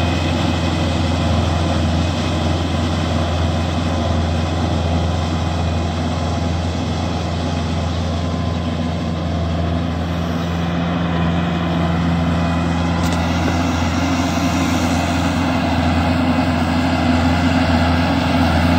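Kubota L4508 tractor's three-cylinder diesel engine running steadily under load as it pulls a rotavator through a flooded paddy field, a little louder near the end.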